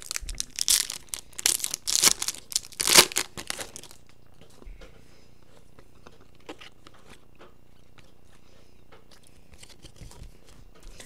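A Topps Chrome baseball card pack being torn open and its wrapper crinkled: a run of loud tearing and crackling over the first four seconds, then only faint, scattered ticks of the cards being handled.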